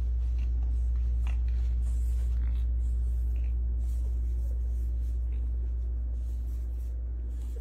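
A steady low hum, easing off slightly near the end, with a few faint clicks.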